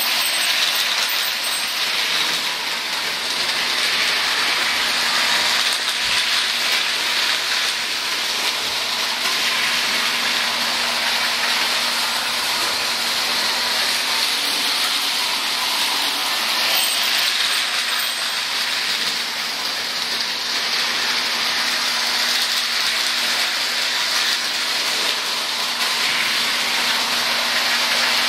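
Toy electric trains running on an O-gauge tinplate three-rail layout: a steady whirring, rushing rolling noise with a faint low hum under it.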